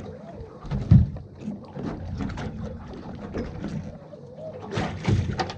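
Irregular knocks and thumps on a small fishing boat at sea, over a steady wash of water and hull noise; the loudest knock comes about a second in, with a few more near the end.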